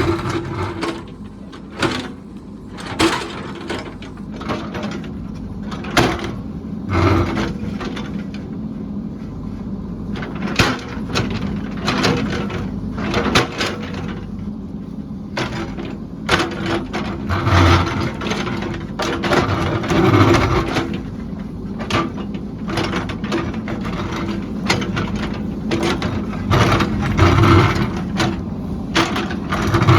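A heavy construction machine's engine running steadily, with many sharp clanks and knocks at irregular intervals from the machine working.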